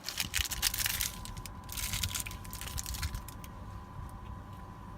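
Plastic protein-bar wrapper crinkling and tearing open for about two seconds, then only a low steady background hum.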